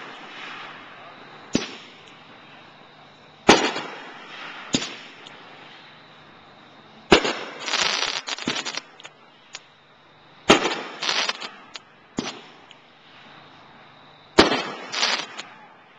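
Aerial fireworks from a Dominator 'Braggin' Rights' consumer firework bursting overhead: sharp bangs every few seconds, the loudest about three to four seconds apart, several trailing into a second or so of crackling.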